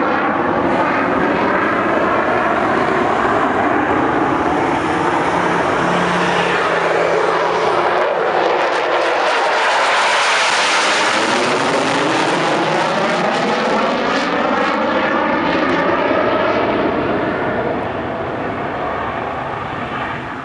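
Military fighter jet taking off, its jet engine noise growing to a peak about halfway through as it passes, then fading away near the end as it climbs out.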